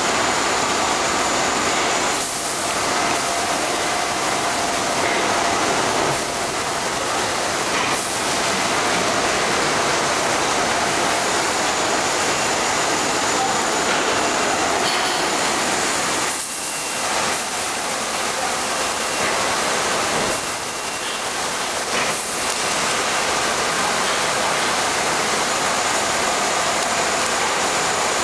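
Blown film extrusion line running: a steady rushing noise of cooling air and machinery, with faint high whines coming and going.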